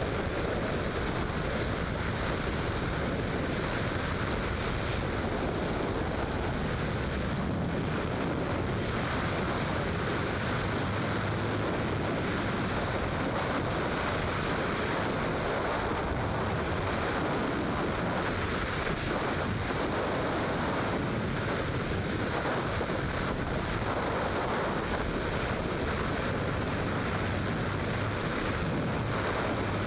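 Freefall wind rushing over a skydiver's camera microphone: a steady, unbroken rush of air noise with no change through the fall.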